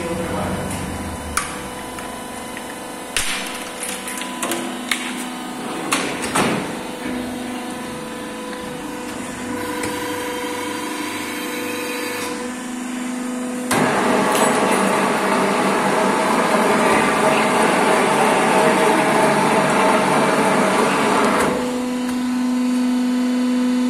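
Plastic injection moulding machine's pump motor humming steadily, with sharp clicks and knocks over the first several seconds as moulded plastic parts are pried out of the mould with a metal tool. From about fourteen seconds in to about twenty-one the machine runs much louder with a harsh rushing whir, then drops back to its steady hum.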